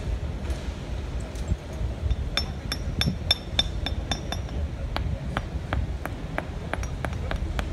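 Hand hammers tapping stone paving setts down into their sand bed: a run of sharp, irregular clinks, several a second, ringing most clearly from about two and a half to four and a half seconds in. A steady low rumble lies underneath.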